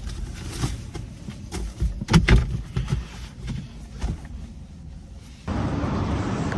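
Handling noises and knocks as stickers are put back into a box, with one loud knock about two seconds in. Near the end the sound cuts suddenly to a steady outdoor rushing noise.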